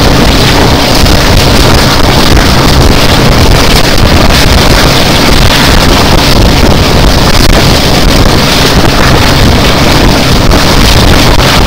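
Loud, steady wind buffeting the microphone held out of a moving train's window, over the constant running noise of the train at speed.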